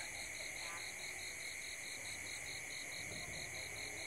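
Night insect chorus: a steady high trill with a second, higher chirp pulsing evenly about five times a second.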